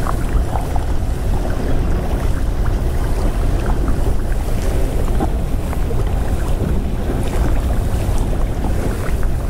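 Steady wind rumbling on the microphone at the lakeshore, a loud low buffeting with a few faint scattered ticks over it.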